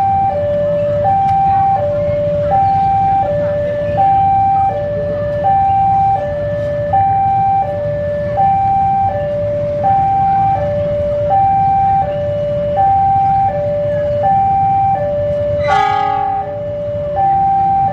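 Railway level-crossing warning alarm sounding a steady high-low two-tone pattern, one high-low cycle about every 1.4 seconds, signalling that a train is approaching. Underneath it a diesel locomotive's engine runs low and steady.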